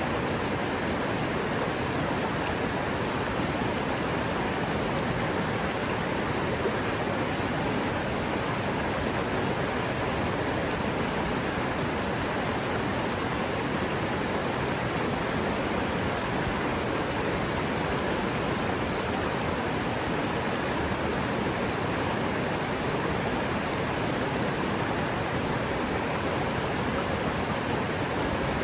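River water rushing steadily over rocks in a forest stream, an even, unbroken sound.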